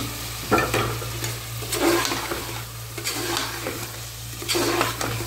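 A metal spoon stirring raw chicken pieces into sizzling onion-tomato masala in a metal pressure-cooker pot, with a scraping stroke roughly every second over the steady sizzle of the frying.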